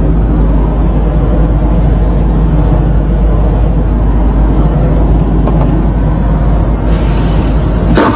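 Steady, loud rumble and rushing noise of a jet airliner in flight, heard from inside the aircraft's lavatory.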